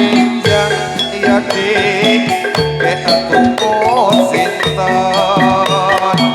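Live Javanese gamelan music: bronze metallophones beat out a steady run of struck notes over drum strokes, and a female singer's voice rises above them in places.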